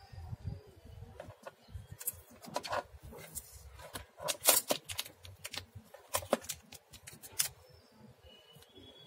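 Clear plastic film crackling and crinkling as fingers peel it off the plastic casing of a solar charge controller: a run of sharp crackles starting about two seconds in, loudest around the middle and ending near the close.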